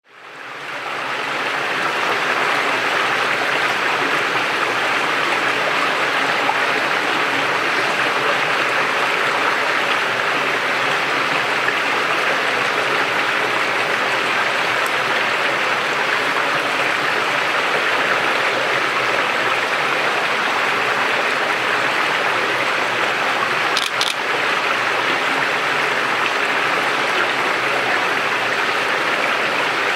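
Steady rush of running water, even and unbroken, with one brief click late on.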